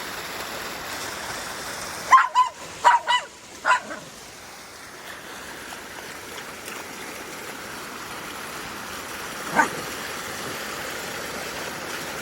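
A dog barking: a quick run of about five short barks about two seconds in, and one more bark near the end. Under it is the steady rush of rain-swollen runoff water flowing down a small hillside stream.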